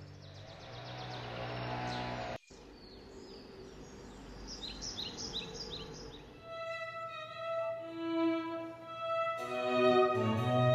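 Birds chirping over a steady noise, broken by an abrupt cut after about two and a half seconds. At about six and a half seconds bowed-string music with violin and cello begins, swelling into a fuller orchestral sound near the end.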